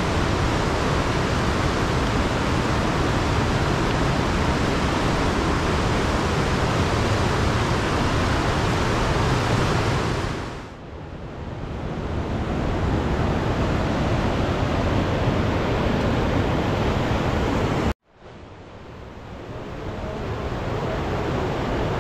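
Steady loud rushing of river water. It sinks away about ten seconds in and swells back, then cuts out abruptly near eighteen seconds and fades back in.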